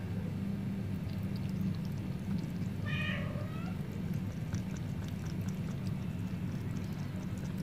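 Cat lapping water from a plastic bowl: faint wet clicks, with a cat meowing once, briefly, about three seconds in. A steady low hum runs underneath.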